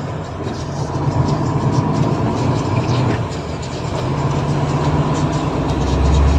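Steady engine drone and road noise of a Volvo FH truck heard from inside the cab while driving on a wet road. A deeper rumble builds over the last second.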